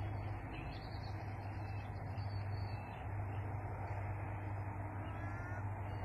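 Outdoor dusk ambience: a steady low hum and hiss, with a few faint bird calls.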